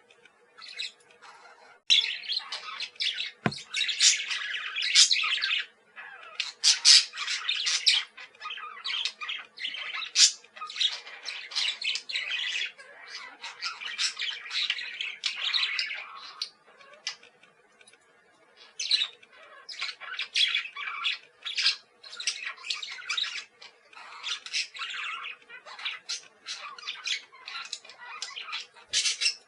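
Parakeets chattering and squawking, dense rapid calls that come in busy stretches with short lulls, over a faint steady hum.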